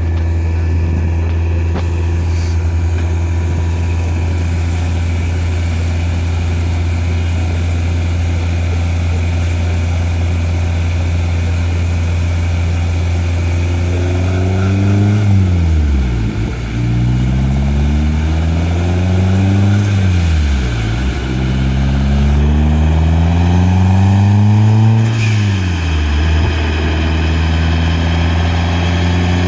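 Car engine running on a chassis dynamometer, holding a steady pitch at first. From about halfway the engine revs climb and drop back sharply three times, then begin climbing again near the end.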